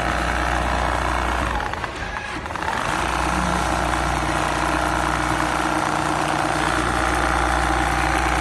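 Richpeace large-size automatic sewing machine with rotary head stitching a feather duvet: a steady mechanical running with a low hum, easing off briefly about two seconds in and then running on steadily.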